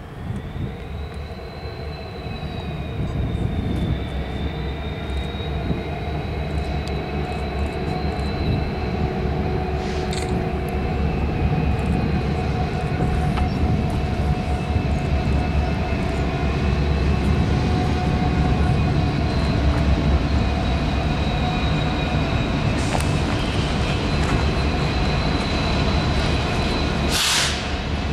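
Freight train passing: two BNSF SD60M diesel-electric locomotives running with a deep engine rumble and a steady high whine that grows louder as they draw near, then the freight cars rolling by. A brief hiss comes near the end.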